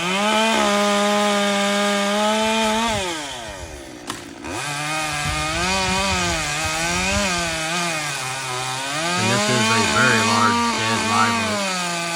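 Chainsaw revved to full throttle, held for a few seconds and eased off, then cutting into oak wood, its engine speed dipping and recovering several times under load. A few sharp snaps come near the end.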